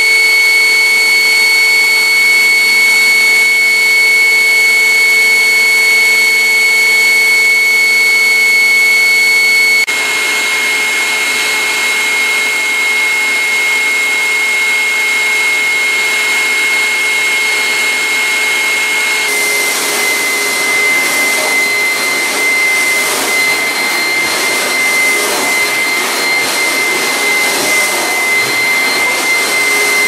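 Hoover SteamVac Dual V Spin Scrub carpet cleaner running, with a steady high motor whine. Its brushes are spinning and it is working as it should. The sound shifts abruptly twice.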